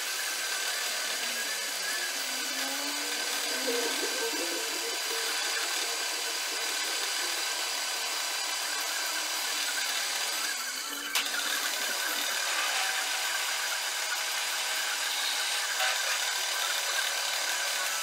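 Milling machine spindle running a twist drill through a metal back plate, a steady machine sound with a hissing cutting noise. It breaks off briefly with a click about eleven seconds in, then carries on.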